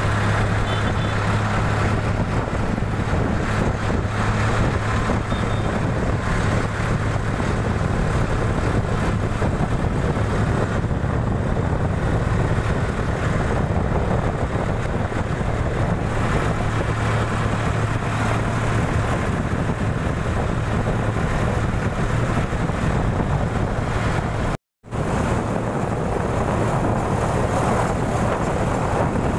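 Sonalika 39 HP diesel tractor engine running steadily under way, heard from the driver's seat as a constant low drone. The sound cuts out completely for a split second once, late on.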